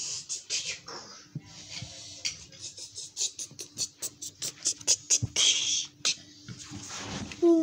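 Irregular clicks and short breathy hisses, mouth sounds of the beatboxing kind, with a faint steady hum underneath.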